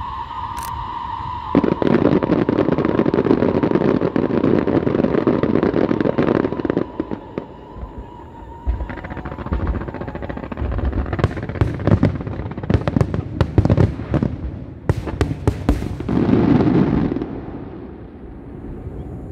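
Fireworks going off: a dense crackling salvo for several seconds, then a string of sharp separate bangs, then one more dense crackling burst near the end that dies away. A steady high whistle-like tone runs underneath through the first half.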